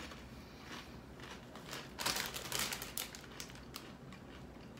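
Foil-lined Doritos chip bag crinkling as it is handled, loudest for about a second near the middle, with a few smaller rustles before and after.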